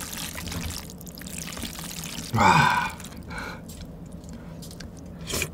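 Chopsticks stirring wide Chinese glass noodles through thick sauce, a wet, sticky squelching. About two and a half seconds in there is a short, loud vocal sound from the eater, and a fainter one just after.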